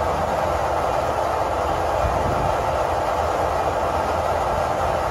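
A steady, continuous mechanical noise, like a motor or blower running, without a break or change.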